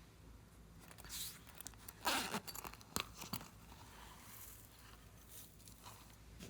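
Short, crackly handling noises from slime-making materials, loudest about two seconds in, with a sharp click about three seconds in and fainter rustles after.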